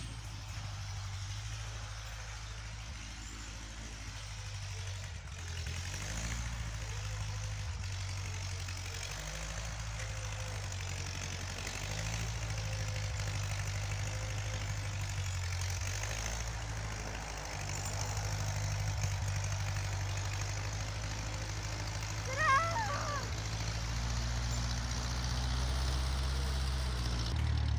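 An engine running at a low, steady speed, its low hum shifting in pitch a little now and then, with one brief high wavering squeal about 22 seconds in.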